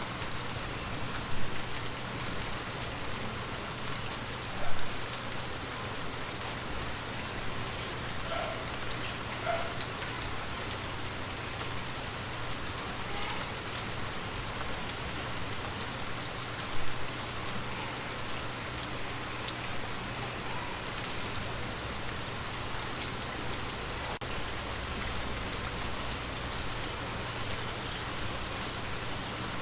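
Steady rain falling on surfaces, an even hiss of many drops. Three louder single knocks stand out, at about a second and a half, near five seconds and near seventeen seconds.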